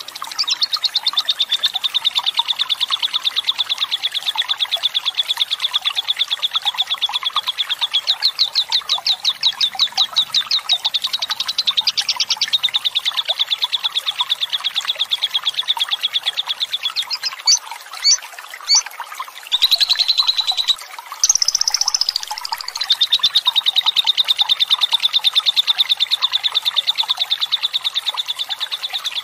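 A lovebird giving its long 'ngekek' chatter: a rapid, high, rattling trill held unbroken for many seconds, interrupted about two-thirds of the way through by a few short sharp calls and a couple of louder bursts, then resuming.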